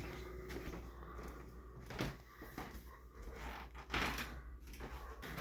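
A door being opened: a few soft knocks and bumps, the loudest about four seconds in, over a low steady hum.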